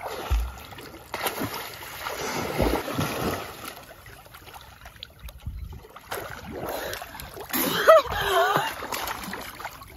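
Swimming-pool water splashing and sloshing around the camera as a swimmer moves through it underwater. About eight seconds in, a brief high voice is heard as the swimmer surfaces.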